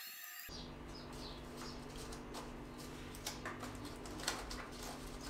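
Light, scattered clicks and taps of small brass reed organ reeds being pulled from the reed board and dropped into a plastic compartment box, over a steady low hum. The sharpest click comes about four seconds in.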